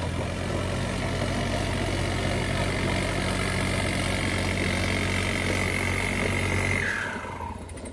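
John Deere tractor's diesel engine at full throttle under heavy load, pulling against a chained Mahindra Thar in a tug-of-war, its rear wheels spinning. A steady high whine joins about two and a half seconds in and falls in pitch near the end as the engine sound fades.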